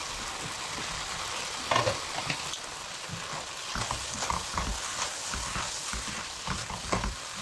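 Stir-fried beef noodles sizzling in a hot non-stick pan while being tossed with chopsticks: a steady frying hiss with scattered clicks and knocks of the chopsticks against the pan.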